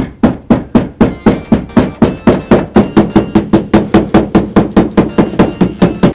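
Rapid, evenly spaced hammer blows, about four a second, each with a short ring.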